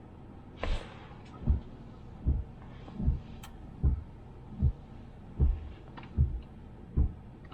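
Car turn-signal ticking inside the cabin: nine even low ticks, about one every 0.8 seconds, the first with a sharper click, over steady road noise.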